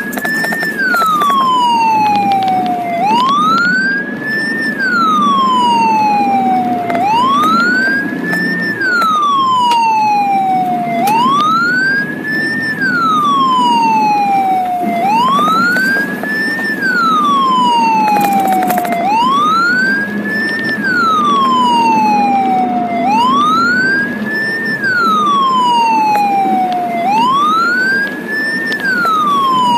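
Ambulance siren in a slow wail, rising over about a second and falling over about three, repeating about every four seconds. It is heard from inside the moving ambulance, with its engine and road noise underneath.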